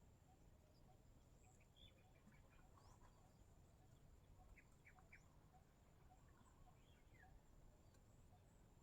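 Near silence: faint outdoor ambience with scattered short bird chirps, a soft regular tick a little over twice a second, and a thin steady high-pitched whine.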